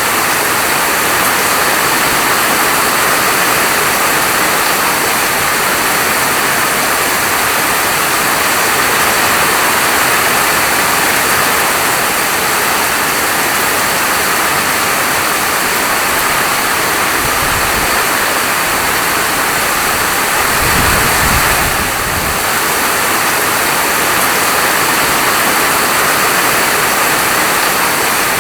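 Heavy rain falling in a steady, even hiss, with two short low rumbles a little past halfway and about three quarters through.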